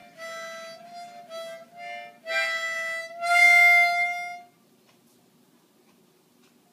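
Harmonica blown by a small child: a few short notes, then louder blasts sounding several reeds at once, and one long, loud held note.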